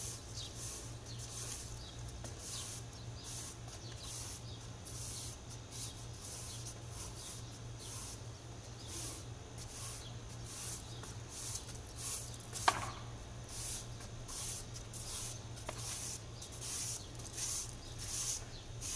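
A broom sweeping a tiled floor in repeated brushing strokes, about two a second, over a steady low hum. One sharp click about two-thirds of the way through.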